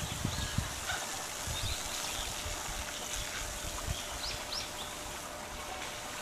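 Steady outdoor hiss with a handful of short, high-pitched animal calls scattered through it.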